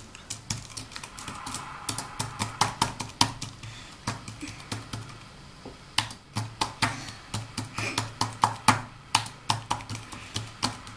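Keys clicking on a low-profile aluminium computer keyboard as a child types in quick, irregular runs, with a short pause a little before halfway.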